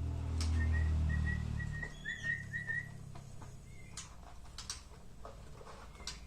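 A quick run of about eight short whistled notes at one high pitch, lasting a couple of seconds, with a few sharp clicks and a low hum at the start.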